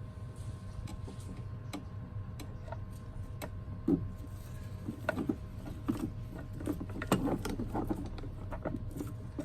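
Irregular small metallic clicks and ticks of a hand tool and screws being worked while fastening a car's ABS module, coming more thickly in the second half, over a steady low hum.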